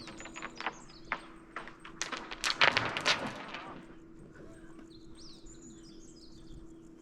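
Wind turbine turning with a loud, crackling rattle (バリバリ), an abnormal noise over its usual rotation sound that the uploader suspects comes from wear. The crackles come in a cluster that is loudest about two and a half to three seconds in, over a steady hum. Small birds chirp in the second half.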